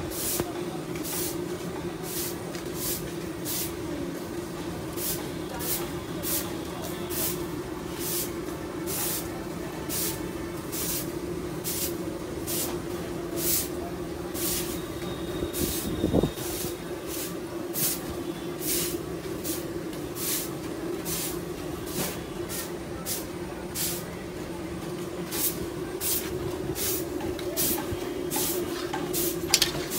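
Hot oil frying in a large wok, hissing and spitting in short sharp crackles one or two a second over a steady hum, with a single knock about halfway through.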